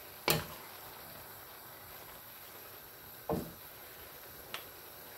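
A spatula knocking against a metal wok of stir-fried noodles: a sharp knock just after the start, another about three seconds in, and a faint tap a second later, over a low steady hiss.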